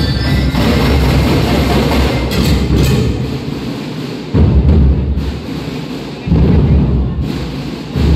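Marching band drum line playing loudly, bass drums and snare drums carrying the beat. Twice, about four and a half and about six seconds in, the whole band hits a sudden loud accent that then dies away.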